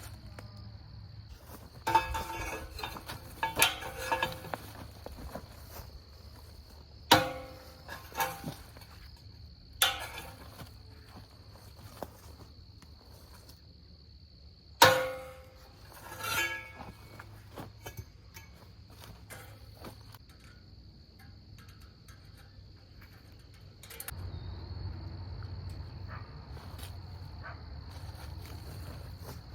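Sharp metallic clinks and clanks, several ringing briefly, from fence wire, clips and a fence stretcher being worked to tighten the top wire. Insects keep up a steady high drone throughout.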